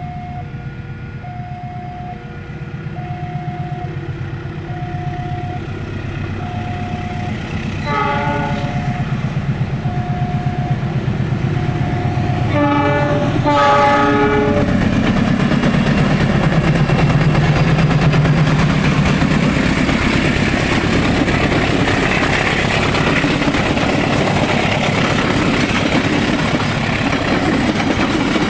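A level-crossing warning bell repeats a short electronic tone about once a second while a diesel locomotive's horn sounds briefly about 8 s in and twice more around 13 to 14 s. After the horn, a departing passenger train passes close by, its rumble building and its wheels clicking over the rail joints.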